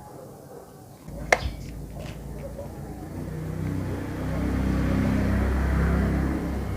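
A motor vehicle's engine running, growing louder to a peak about two-thirds of the way through, then fading. A single sharp click comes just over a second in.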